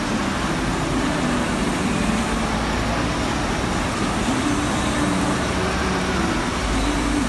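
Steady city background noise with a constant traffic hum, and faint low tones wavering underneath.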